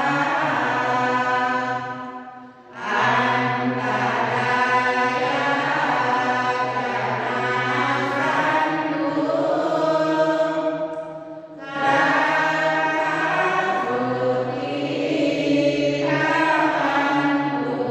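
A group of Thai Buddhist lay devotees chanting prayers in unison, a steady recitation on a fairly even pitch. It breaks off briefly twice, about two and a half seconds in and again around eleven seconds, and then goes on.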